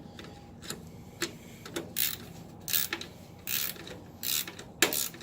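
Ratchet wrench worked back and forth to tighten the nut holding a light switch, a short burst of ratchet clicking on each stroke, about six strokes under a second apart, the last one the loudest.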